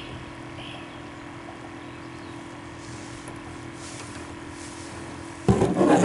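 Steady low hum, then about five and a half seconds in a sudden loud clatter of a kayak paddle knocking against the plastic kayak as it is picked up.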